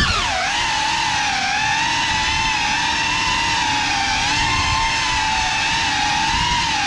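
Four brushless motors and ducted propellers of a GEPRC CineLog35 6S cinewhoop quadcopter whining at a fairly steady throttle, heard from the onboard GoPro. The pitch wavers slightly as the throttle changes.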